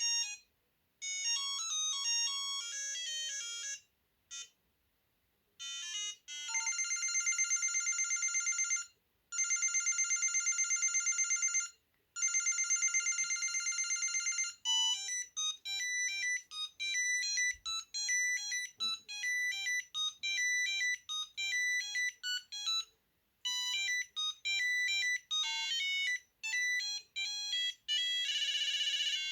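Built-in ringtones of a 2001 Samsung SGH-A300 mobile phone playing one after another: high, beeping electronic melodies with short silent gaps. In the middle a warbling held chord sounds, stops and restarts twice.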